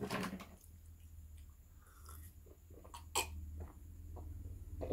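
A person breathing out hard through the mouth, then drinking from a mug, with small mouth clicks and a sharp knock about three seconds in.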